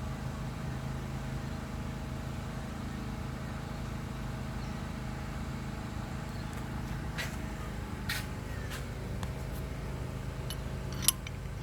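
Steady low hum, with a few sharp metallic clicks in the second half and the loudest one near the end: tools and a spark plug being handled in the engine bay while a new plug is fitted into the plug socket.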